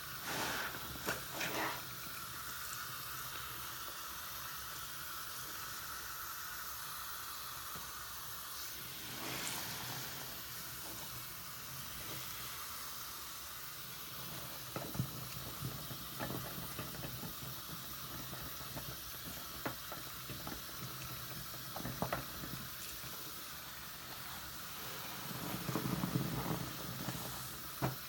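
A large bath sponge squeezed and rubbed in a sink of thick soap lather under a running faucet: a steady hiss of tap water and fizzing foam, with wet squelches now and then and a longer, louder squishing stretch near the end.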